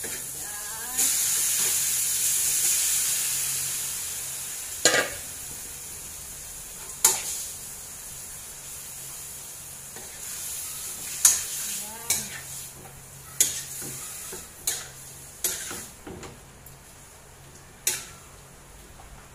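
Raw chicken pieces hitting hot butter in a metal pot: a loud sizzle starts about a second in and fades over the next few seconds. After that a utensil stirs the chicken, knocking sharply against the pot about eight times over a lower continuing sizzle.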